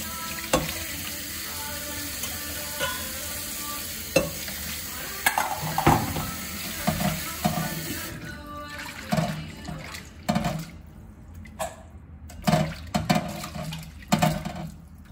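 Water running from a kitchen tap into a sink while bean sprouts are washed by hand. About eight seconds in the running water stops, leaving short splashes and knocks of handling in the sink.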